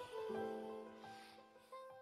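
Soft background music of held notes, fading almost to silence in the second half.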